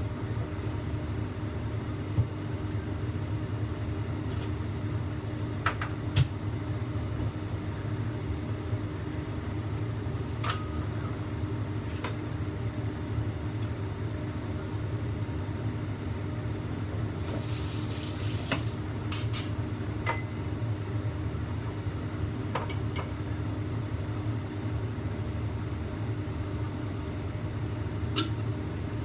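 A lidded wok steaming fish on a gas burner: a steady low rush and hum, with occasional light ticks and a brief hiss about seventeen seconds in.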